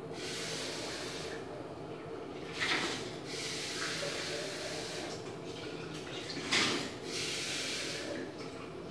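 Kitchen tap running into a stainless steel sink in several spells, water splashing over a container held under the stream, with two louder splashes about a third and three quarters of the way in.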